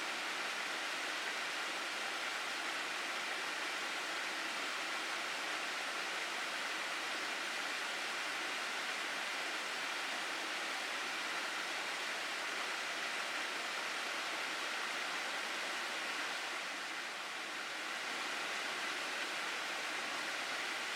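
Mountain stream water rushing steadily over rocks in a gorge, an even, unbroken rush that dips slightly about seventeen seconds in.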